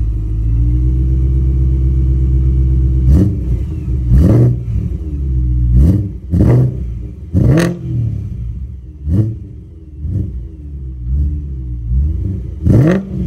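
BMW E92 M3's 4.0-litre V8 idling steadily, then blipped repeatedly in about eight short, sharp revs that each fall straight back to idle. It runs through Remus exhaust pipes with a custom X-pipe and freshly fitted resonators.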